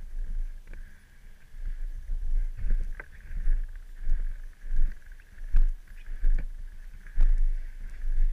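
Snowmobile ride noise: an uneven low rumble with irregular thumps and knocks, over a steady high whine.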